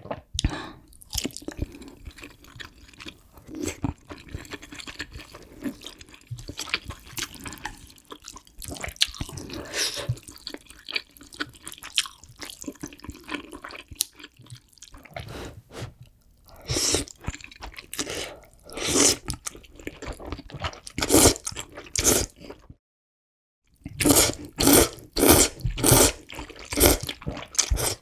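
Close-miked wet chewing and smacking while eating tofu and ramyeon noodles in kimchi stew. In the second half come repeated loud noodle slurps, broken by a second of silence.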